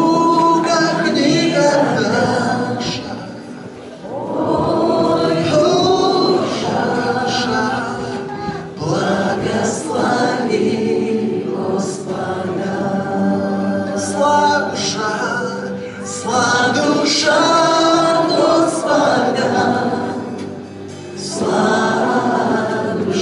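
A group of voices singing a worship song together, phrase by phrase, with short gaps between the phrases.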